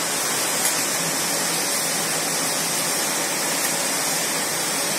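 Steady rushing hiss of outdoor background noise, with two faint ticks, one about half a second in and one near three and a half seconds.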